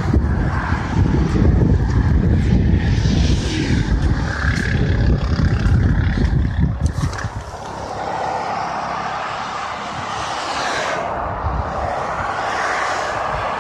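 Expressway traffic passing below: a steady hiss of tyres and engines, with single vehicles swelling past now and then. A heavy, uneven low rumble covers the first half and drops away about seven seconds in.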